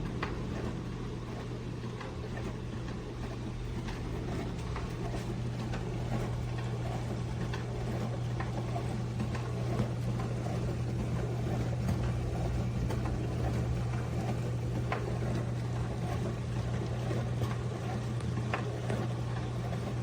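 HAVA tabletop dishwasher running: a steady low motor hum with scattered faint ticks.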